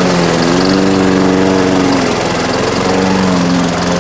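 Craftsman walk-behind gas lawn mower running at speed while cutting long grass. Its steady engine note dips and recovers a couple of times.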